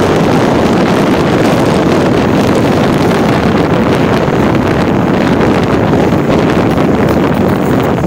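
Strong wind blowing across the microphone: a loud, steady buffeting noise.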